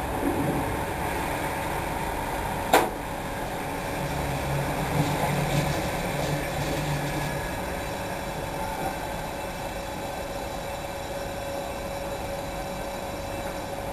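Aquarium pump humming steadily with a constant tone, with one sharp click about three seconds in and a low rumble for a few seconds after it.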